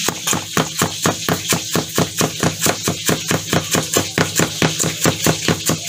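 Cleaver chopping ginger on a plastic cutting board: rapid, even knocks of the blade, about five or six a second.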